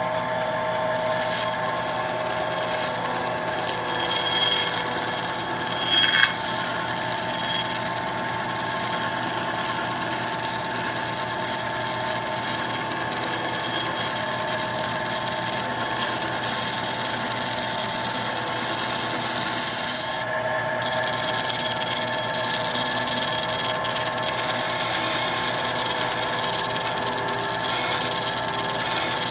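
Skil 3386 bench band saw running, its 1/4-inch 6 TPI blade cutting through high-density foam: a steady hum with a constant hiss over it, with one brief louder spike about six seconds in.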